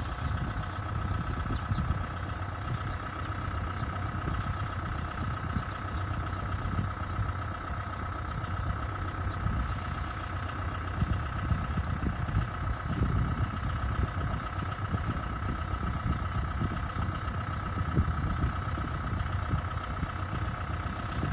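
A machine running steadily: a low rumble under a steady mid-pitched whine, with no change in speed.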